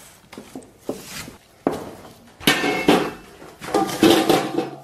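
Raw beef short-rib slabs being tipped from a stainless steel bowl into a large stainless steel pot. The bowl clanks against the pot and rings, and the meat lands with heavy thuds in several loud clatters through the second half.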